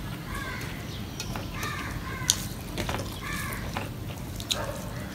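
Crows cawing repeatedly, short harsh calls about once a second. A sharp click stands out about two seconds in, among lighter clicks.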